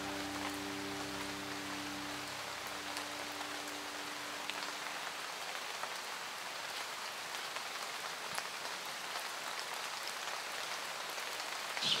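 Steady pouring rain, with drops pattering on the camouflage fabric of a pop-up ground hide.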